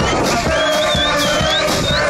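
A live brass band playing festive music over a steady beat, with crowd voices over it.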